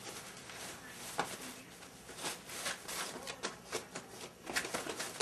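Border Collie puppy moving and mouthing a toy on a plastic-sheet pen floor: irregular small clicks and crinkles of plastic, busier in the second half.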